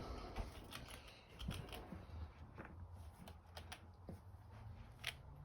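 Faint, irregular crinkling and crackling of a potato-chip bag as a chipmunk rummages in it for chips, with one sharper crackle about five seconds in.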